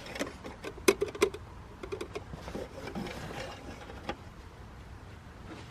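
Small clicks and knocks of a plastic quart bottle of engine oil being handled and opened to top up the engine: a quick cluster in the first second and a half, then fainter scattered taps.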